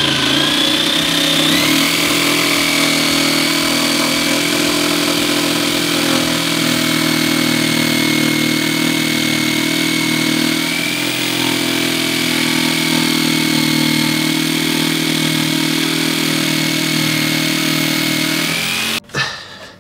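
Corded Bosch jigsaw running and cutting the sink cutout through a wooden worktop. Its whine rises in pitch about a second and a half in, then holds steady until it stops abruptly near the end.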